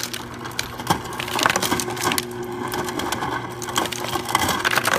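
Ice cubes from a Frigidaire refrigerator door dispenser clatter irregularly into a foam cup over the steady hum of the dispenser motor. The dispenser is delivering ice again now that its chute flap has been repaired.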